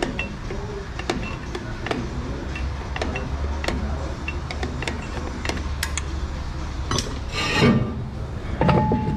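Drum-brake star-wheel adjuster being turned by hand, giving sharp irregular clicks one to three a second as it extends the shoes. Near the end comes a short scraping rush and a couple of clattering knocks.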